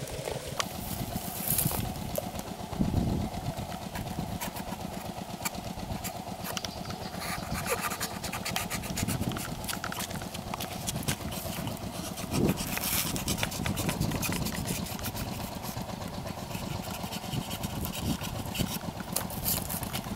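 Paper instant-noodle cups being cut open with a kitchen knife and handled. The cardboard and a plastic bag give a steady run of small clicks, taps and crinkles, with a few louder knocks.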